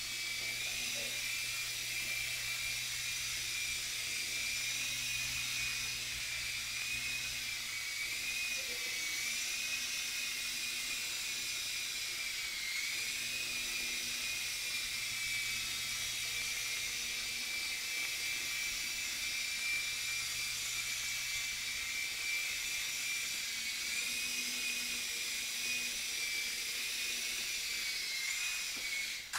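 E-flite Blade mCX micro coaxial RC helicopter in flight: a steady high-pitched whine from its small electric motors and rotors, the pitch wavering slightly as the throttle changes. It stops abruptly at the very end once the helicopter has landed and the motors are cut.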